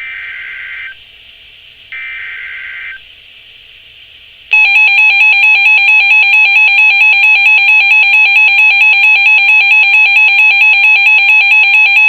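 Emergency Alert System activation on NOAA Weather Radio. Two short buzzy digital header bursts, about a second each, come a second apart; about four and a half seconds in, the loud, continuous attention alarm tone begins, fluttering rapidly, to announce a severe thunderstorm warning.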